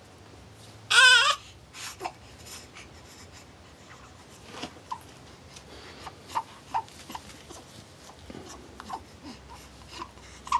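Newborn baby giving a brief, wavering cry about a second in, then a scattering of faint short squeaks and small clicks.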